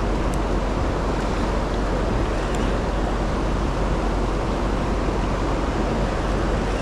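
Steady rush of the James River's rapids at the fall line, an even roar of water with a low rumble under it.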